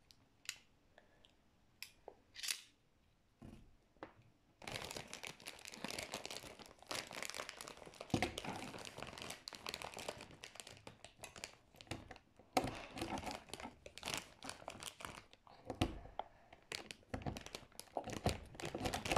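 Empty foil chip bag crinkling as it is handled, a few separate crackles at first and then dense, irregular crinkling from about five seconds in, with brief pauses.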